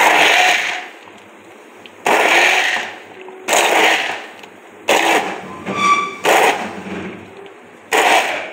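Immersion hand blender pulsed in six short bursts, about one and a half to two seconds apart, churning falsa berries and water into a pulp.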